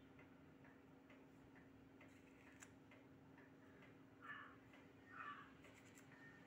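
Near silence with a low hum and faint regular ticking, about two ticks a second. About four and five seconds in come two brief soft rustles as fingers rub red colour powder into a kolam on the floor.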